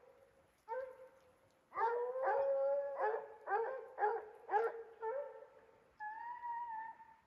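Redbone hounds baying on a mountain lion chase: a quick run of short chop barks, then longer drawn-out bawls near the end.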